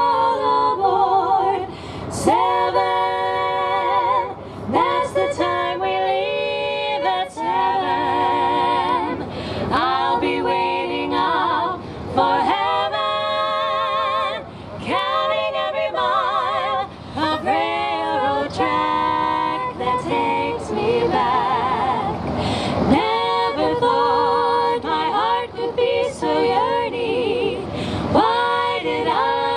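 Female vocal group singing a cappella in close harmony, in a 1940s style, with vibrato on held notes and short breaks between phrases. The voices come through a single microphone over public-address loudspeakers.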